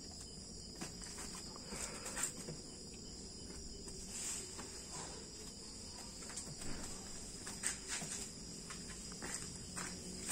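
Crickets chirping in a steady high-pitched chorus, with occasional soft knocks and rustles of wrapped parcels being set into a car's boot.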